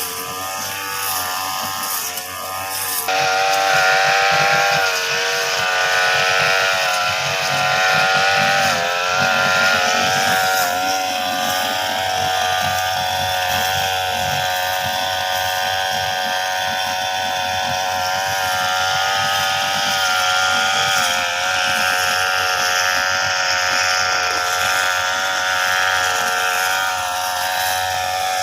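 Engine of a grass-cutting machine (brush cutter) running at high revs while cutting grass, its pitch stepping up about three seconds in and then wavering up and down under the load of the grass, easing off slightly near the end.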